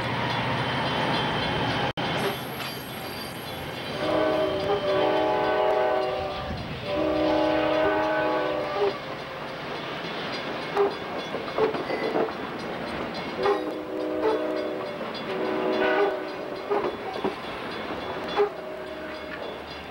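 Amtrak passenger cars rolling past close by, with a steady rolling rumble and scattered wheel clicks. A locomotive air horn sounds a chord in four blasts: two long ones starting about 4 seconds in, then two shorter ones about 13 seconds in.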